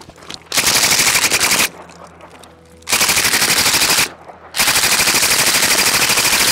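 Chopped-down RPD belt-fed machine gun in 7.62×39 with a Dead Air Wolverine PBS-1 suppressor firing three bursts of automatic fire at about ten rounds a second, the last burst the longest at about two seconds.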